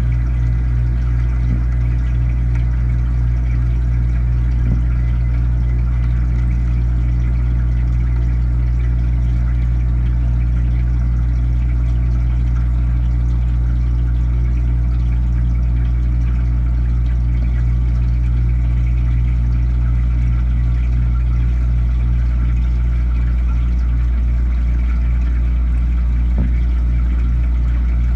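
A steady low mechanical hum, a machine running without pause, with a faint pulsing in the hum near the end.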